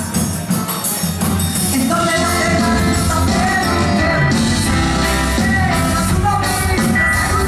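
A live band playing a Brazilian popular song, with a singing voice over it.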